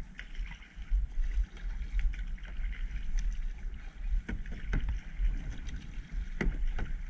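Kayak paddling: the paddle blades dip and splash in the water, with a few sharp knocks about four and a half and six and a half seconds in, over a low rumble.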